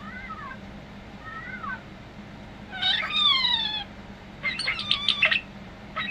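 European starling singing: two soft down-slurred whistles, then a loud, drawn-out, wavering meow-like call about three seconds in, followed by a rapid burst of clicking, chattering notes. Starlings are mimics, and the meow-like call is typical of a starling copying a cat.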